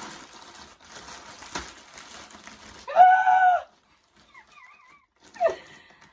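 Plastic packaging crinkling and rustling as a parcel is opened, then a loud, short pitched cry about three seconds in and a brief falling cry near the end.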